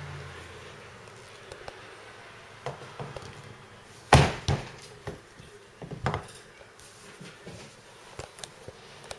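A few light clicks and knocks, as of hard objects being handled and set down, with one sharp knock about four seconds in and another about two seconds later.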